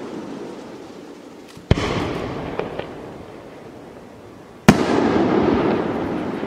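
Aerial firework shells bursting: two sharp bangs about three seconds apart, each followed by a long rolling echo that dies away over a couple of seconds. A few faint crackles follow the first bang.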